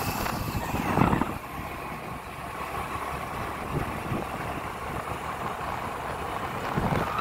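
Motorcycle running along at road speed with road noise and wind buffeting the microphone, loudest about a second in.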